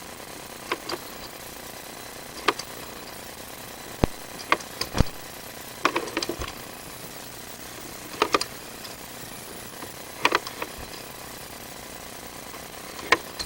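Sewer inspection camera's push cable and camera head being fed through a drain pipe, giving irregular knocks and clicks, some in quick clusters, over a steady hiss.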